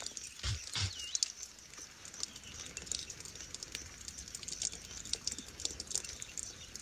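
A squirrel lapping water at the mouth of a plastic water bottle: a run of small, irregular wet clicks and ticks. A short chirp sounds about a second in.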